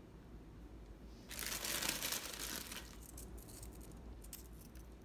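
Aluminium foil crinkling under hands for about a second and a half, followed by a few light ticks.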